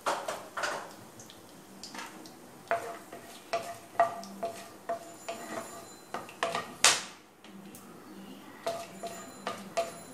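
Wooden spatula stirring and scraping whole spices around a nonstick kadai in hot oil: irregular knocks and scrapes against the pan, the longest and loudest scrape about two-thirds of the way through.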